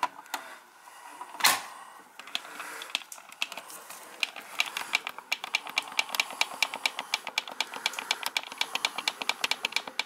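Buttons on a wall-mounted programmable thermostat clicking as they are pressed over and over, several clicks a second from about four seconds in, while the setpoint is raised to call for heat. There is a single louder knock about a second and a half in.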